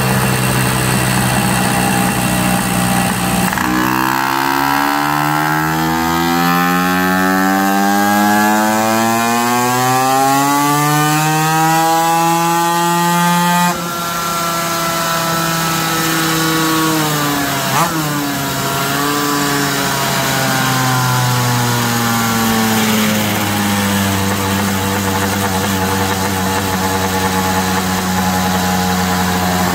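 Two-stroke engine fitted with a 40 mm Smart Carb, running on a test stand. For about ten seconds its revs climb slowly. About halfway through the throttle shuts and the engine winds down slowly on overrun, then settles to a steady run.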